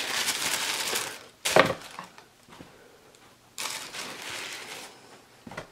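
Tissue paper rustling and crinkling as it is pulled back inside a cardboard shoebox, in two stretches, with a sharp knock about one and a half seconds in.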